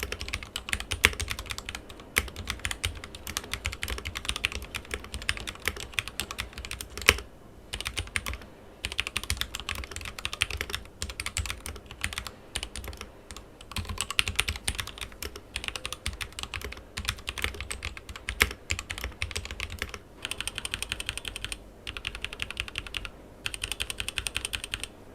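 Continuous fast typing on a Daxa M84 Pro mechanical keyboard with linear Gateron Yellow switches lubed with Krytox 205g0: a dense stream of key clacks, broken by a few brief pauses.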